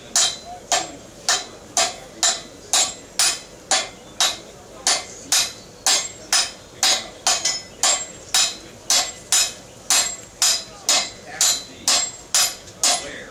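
A blacksmith's hand hammer and a striker's sledgehammer beating hot iron on an anvil in turn, in a steady rhythm of about two blows a second, each blow with a short metallic ring.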